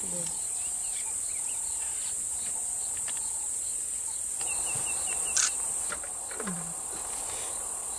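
Bush ambience: a steady high-pitched drone of insects with scattered bird chirps, including a quick run of chirps about four and a half seconds in.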